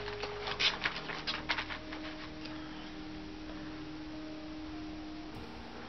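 Quick crackly clicks for about the first two seconds as the plastic snack packaging is handled, then faint held tones that shift pitch now and then, like quiet background music.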